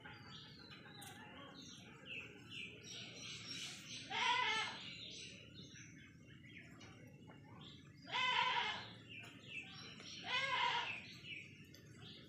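A young goat bleating: three loud cries about four, eight and ten and a half seconds in, each under a second long, with faint short chirps in between.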